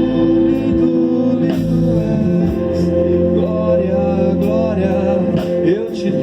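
Live gospel worship band playing a slow passage: sustained keyboard chords with a melody line sliding in pitch over them.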